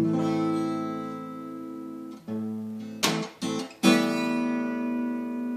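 Acoustic guitar with a capo on the first fret, strumming an A-minor-shape chord. The first strum is left to ring for about two seconds. It is struck again a few times in quick succession between two and four seconds in, and the last strum rings out.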